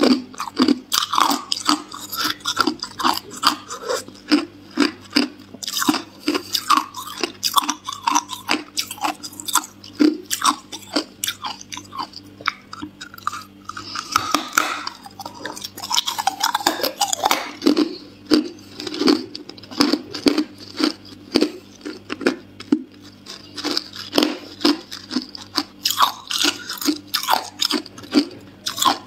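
A person biting and chewing hard clear ice close to the microphone: a rapid, uneven run of sharp crunches and cracks.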